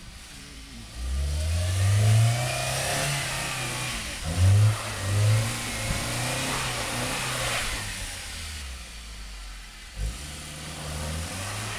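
Toyota Corolla 4WD engine revving under load, rising about a second in and pulling harder twice more a few seconds later, with a steady rushing noise over it that eases near the end. A short knock comes near the end.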